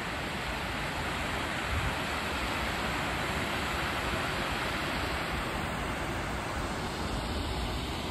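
River water rushing over a weir: a steady, even roar of flowing water.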